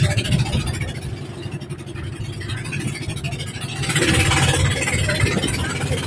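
Motorized outrigger boat's engine running steadily under way, with rushing wind and water noise that grows louder about four seconds in.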